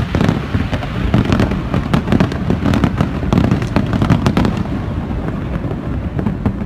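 Fireworks display: many shells bursting in rapid, overlapping bangs and crackles over a low rumble, easing off near the end.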